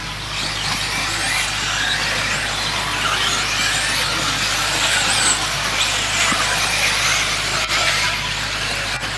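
Several 1/10-scale electric 4WD RC buggies racing on a dirt track: the high whine of their electric motors and drivetrains, rising and falling in pitch as the drivers work the throttle.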